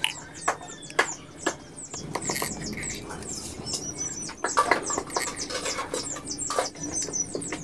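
Irregular light clicks and taps of hand work as the oil filter cover bolts of a Suzuki Raider R150 motorcycle are put back in, with small birds chirping throughout.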